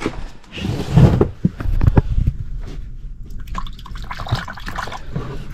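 Water sloshing and dripping in an air handler's overflow safety pan, with a few small knocks. The pan is full because the condensate drain line is clogged.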